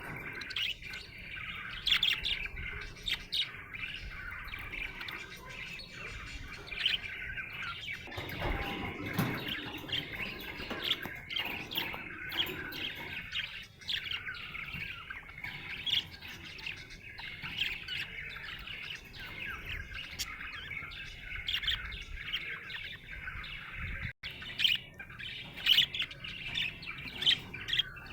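Budgerigars chirping and warbling continuously, a busy stream of short high chirps with occasional louder squawks.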